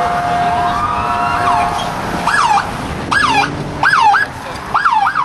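Police car sirens over city traffic: a held tone and a slowly rising wail in the first second or two, then a siren sweeping up and down in pitch about once a second.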